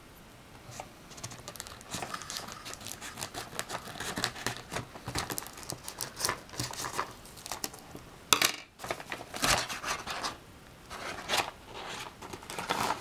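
Scissors snipping open a paper mailer envelope, then the envelope's paper crinkling and tearing in a run of short crackles as it is pulled open, with one louder sharp rip about eight seconds in.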